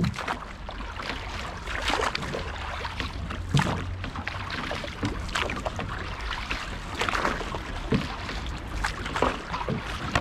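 Canoe paddles dipping and pulling through calm water, splashing and dripping every second or two, with a low wind rumble on the microphone.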